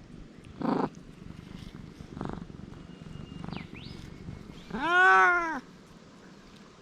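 Dragon Li tabby cat meowing: one loud, long meow about five seconds in that rises and then falls in pitch, after a shorter rough sound about a second in.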